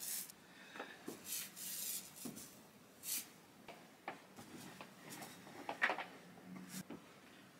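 Paint roller being rolled over a wall: faint, irregular rubbing strokes with a few light knocks.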